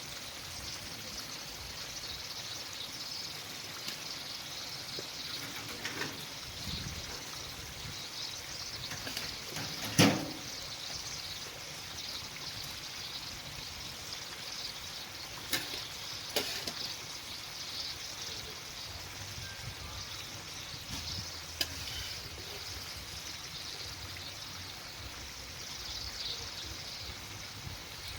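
Oil and food frying in a kazan: a steady sizzle, with a few sharp knocks, the loudest about ten seconds in.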